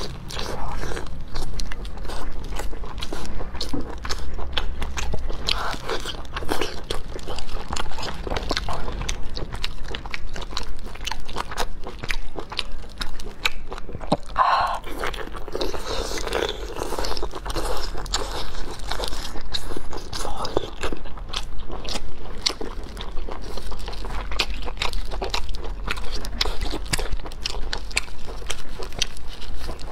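A person eating razor clams close to a clip-on microphone: wet biting and chewing, with a dense run of small sharp clicks and crunches.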